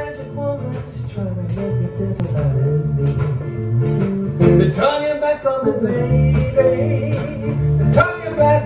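Electric bass (Arttech Jazz Bass) and guitar playing a song live as a duo. The bass line runs underneath, with a melody and regular sharp rhythmic accents above.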